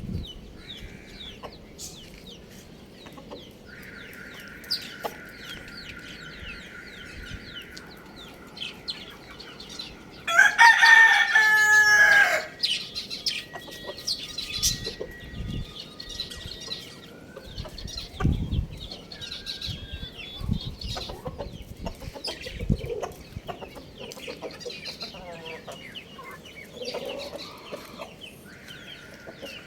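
A rooster crows once, a loud crow of about two seconds starting about ten seconds in, its pitch dropping at the end. Faint short chirps of small birds sound throughout.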